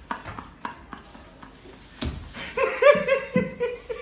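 People laughing: a quiet stretch, a single knock about halfway, then a high-pitched laugh in short wavering pulses.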